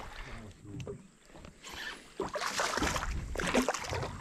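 A hooked tararira (trahira) thrashing at the surface beside the boat, with bursts of splashing from about halfway through.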